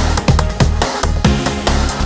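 Background electronic music with a strong fast beat and heavy bass, its deep bass notes sliding down in pitch.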